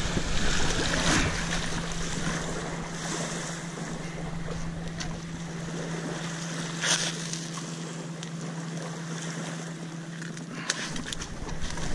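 Wind buffeting the microphone and small waves lapping at the lake shore, over a steady low hum. A few sharp clicks come about two-thirds of the way in and near the end.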